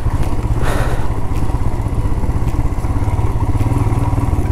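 Royal Enfield Himalayan's single-cylinder engine running steadily under way on a rough off-road track, with a short burst of noise just under a second in.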